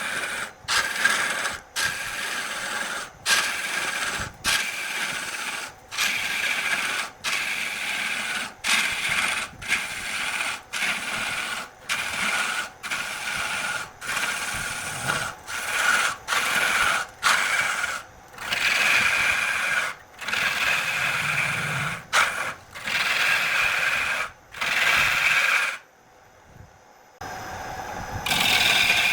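Turning tool scraping and cutting wood spinning on a lathe, in repeated strokes about one a second, each broken off abruptly, with a brief quieter pause near the end.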